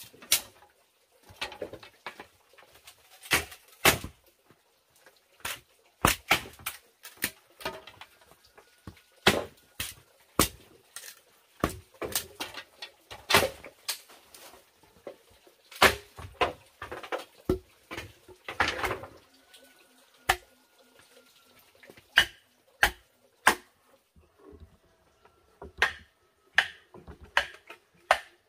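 Irregular sharp knocks and cracks of a knife or machete chopping into and splitting green bamboo poles, often one or two strokes a second.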